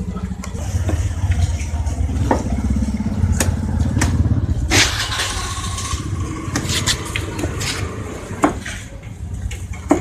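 A motorcycle engine running steadily close by, with a few sharp knocks from a knife chopping fish on a wooden board.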